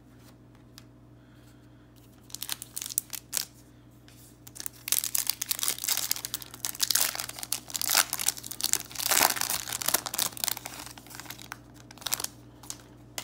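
A foil Topps Chrome baseball card pack being torn open by hand and its wrapper crinkled and crumpled: irregular crackling that starts a couple of seconds in, is densest and loudest in the middle, and trails off near the end.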